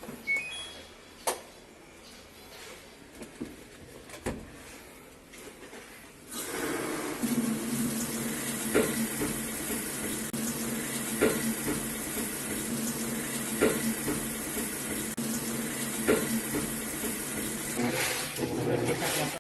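LG Turbodrum washing machine running: quiet at first with a few knocks, then about six seconds in a steady rush of water and machine noise starts, with a sharp knock about every two and a half seconds.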